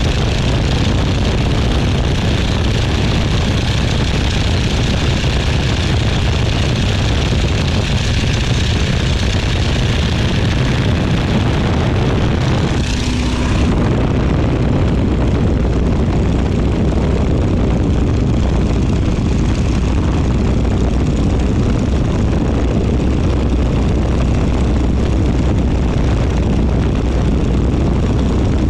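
Boeing Stearman biplane's radial engine and propeller running steadily in flight, close up from the open cockpit. About halfway through the sound changes abruptly and turns duller, with less hiss on top.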